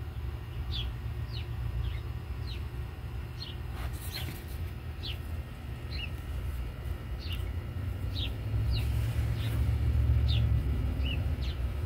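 A bird calling over and over in short, high chirps that slide downward, one to two a second, over a low steady rumble that grows louder in the later part.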